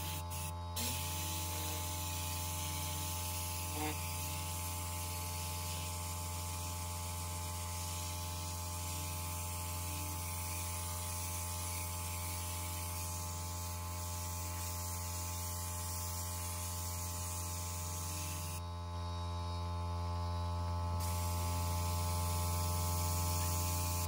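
Hot-water carpet extractor running: a steady motor hum with a hiss of spray and suction over it. The hiss drops away for about two seconds near the end, then comes back a little louder.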